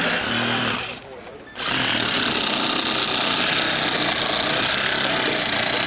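A power saw cutting through a car's laminated-glass rear window, with a steady rasping buzz. It stops for under a second near the start and then starts cutting again.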